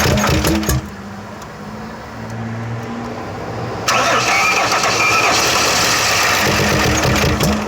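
1999 Chevy Venture minivan's engine being started: loud cranking at first, then a quieter steady low idle for a few seconds, then loud again with pulsing cranking strokes near the end. The engine starts but stalls and will only hold a low idle, sounding like it is choking.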